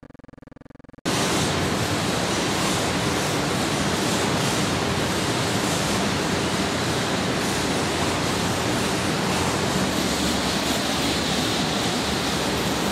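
Loud, steady static-like hiss that cuts in suddenly about a second in and then holds at an even level.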